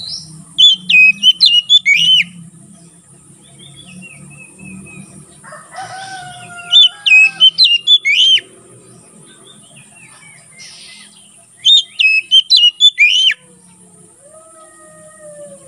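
Oriental magpie-robin (kacer) singing its loud open song: three bursts of rapid, sharp whistled notes about five seconds apart. Softer, lower drawn-out whistles come in between.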